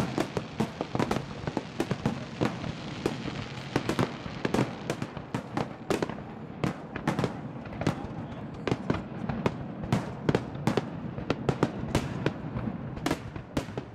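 Fireworks display finale: aerial shells bursting in rapid, overlapping bangs, several a second, over a continuous rumble.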